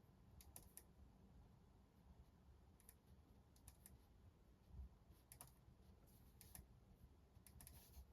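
Near silence: faint, irregular clicks and taps of note-taking over a low steady rumble.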